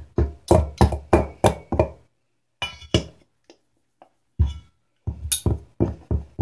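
Two table knives striking and scraping against the inside of a stainless steel cooking pot, cutting butter into flour for pie crust. Quick metallic clinks about three a second, in runs with a pause in the middle.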